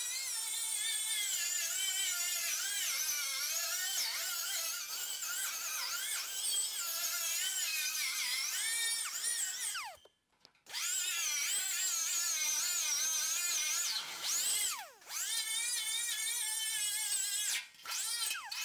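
Air-powered die grinder spinning a knotted wire wheel against a tack-welded 19-gauge steel fender seam, scrubbing off rust and weld scale before welding. A high whine whose pitch wavers as the wheel is pressed on and eased off the metal. It stops briefly about ten seconds in and twice more near the end.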